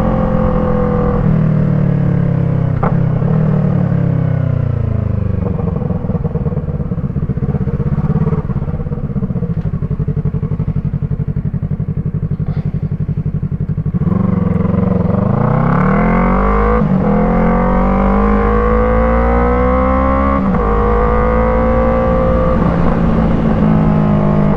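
Yamaha MT-03's parallel-twin engine through an Arashi aftermarket exhaust with its dB killer fitted. The revs fall away over the first few seconds and the engine runs low and steady. Past the middle it accelerates hard, the pitch climbing and dropping at two upshifts before climbing again.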